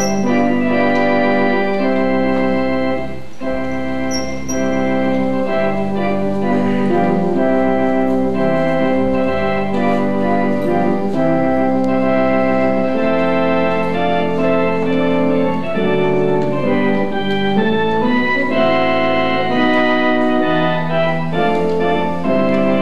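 Organ playing held chords that change every second or two, at a steady level.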